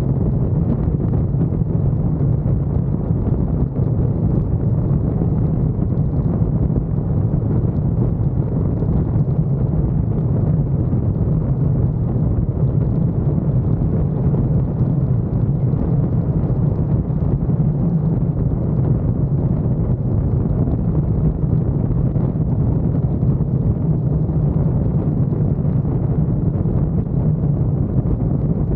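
Steady low rumble of road and wind noise from a moving car, even throughout with no distinct events.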